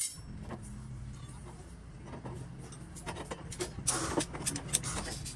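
Steel rebar clinking and clicking against a hand-operated lever rebar bender as bars are set and bent, with a quick series of sharp metallic clicks in the second half, over a steady low hum.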